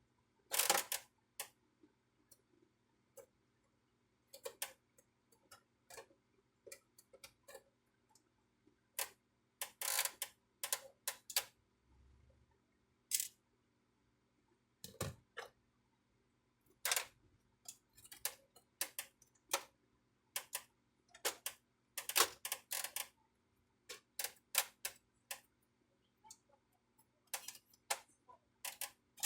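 Plastic casing and parts of a Brother DCP-T820DW inkjet printer being handled during disassembly: scattered sharp clicks, snaps and taps at irregular intervals, some in quick clusters of two or three.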